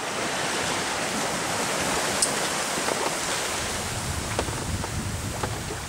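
Steady rush of water along the hull of a sailboat running downwind under spinnaker, mixed with wind buffeting the microphone, and a couple of faint clicks.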